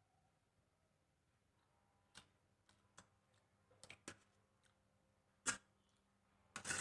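Quiet eating sounds of a person eating noodles: a handful of short clicks and smacks, the sharpest about five and a half seconds in, with near silence between them.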